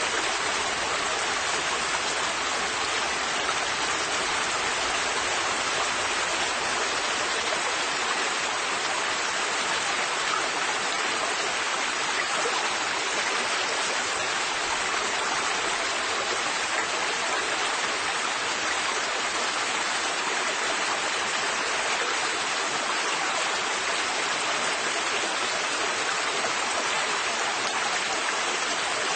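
River water flowing in a steady, even rush, with no splashes or breaks standing out.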